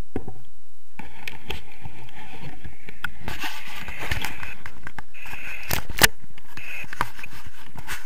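Handling noise from a small action camera being taken in hand and turned round: scraping and rustling against a padded jacket, with scattered clicks and knocks.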